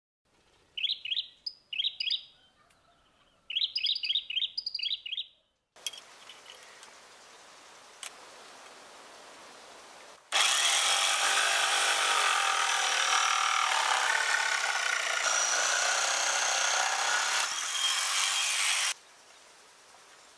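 A bird calls in two short runs of chirps. After a quiet stretch, an electric jigsaw runs steadily, cutting wood, for about eight seconds and then stops.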